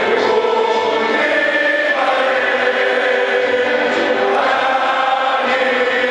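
Massed choral singing of a pre-match anthem filling a packed football stadium, in long held notes that change about every two seconds.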